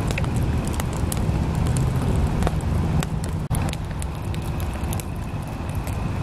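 Fire catching inside a drilled-log rocket stove: a steady low rumble as it draws air, with frequent sharp crackles and pops.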